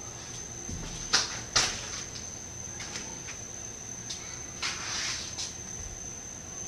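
Two sharp slaps about half a second apart as bare hands and feet hit the floor during a cartwheel, followed later by softer scuffing.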